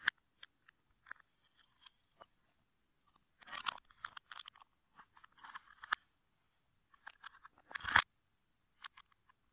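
Plastic Lego bricks clicking, rattling and scraping as they are handled and pressed together by hand, with sharp snaps; the loudest snap comes about eight seconds in as a piece is pushed home.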